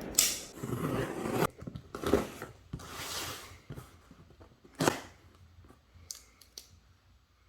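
Packaging being torn open and handled during an unboxing: several short tearing, rustling bursts, the longest at the start, then a few light clicks.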